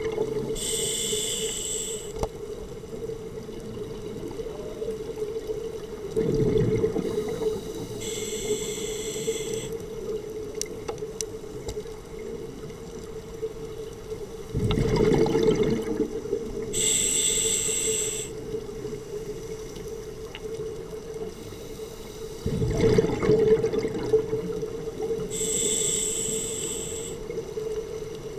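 A scuba diver breathing through a regulator underwater: about four slow breaths, each a high hiss alternating with a low rumble of exhaled bubbles, over a steady hum.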